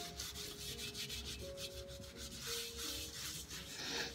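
A cloth scrubbing the tarnished dish of an antique brass scale with Bar Keepers Friend cleanser, in quick back-and-forth rubbing strokes. Faint background music plays underneath.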